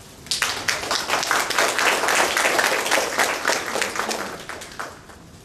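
Audience applause: many people clapping together, starting just after the opening and dying away near the end.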